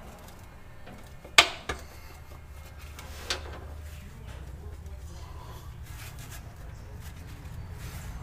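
A few sharp knocks and clicks, the loudest about a second and a half in, as the timing chain cover is worked and pried off the front of a Chevrolet 327 small-block V8. A low steady hum runs underneath.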